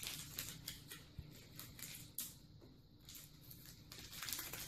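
Faint crinkling and rustling of a small ramen flavor packet being handled and torn open, louder and busier near the end.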